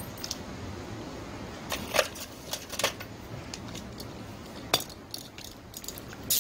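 Hand tools and small metal parts clinking and tapping on a workbench: about half a dozen sharp, separate clinks over a faint steady background.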